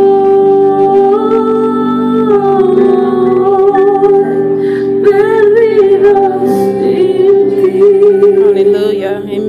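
Slow worship ballad: a woman's voice holding long notes, wavering in pitch about halfway through, over sustained keyboard chords.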